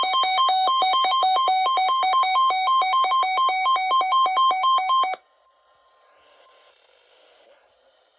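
Electronic weather-radio alert tone: a harsh beep rapidly switching between two pitches, about three to four times a second, for about five seconds. It cuts off suddenly, leaving faint radio hiss.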